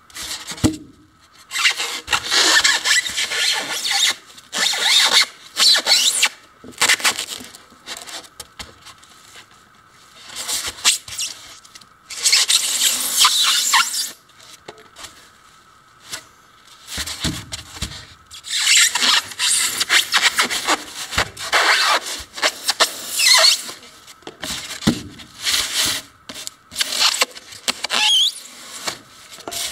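A sharp knife sawing through a thick block of styrofoam, the foam squeaking with each stroke. The strokes come in runs with a few short pauses.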